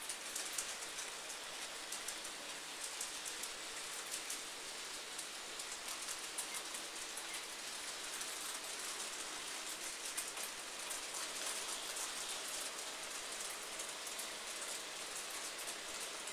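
N gauge model trains running on the layout's track: a steady, fine crackling hiss, like rain, from small metal wheels on the rails.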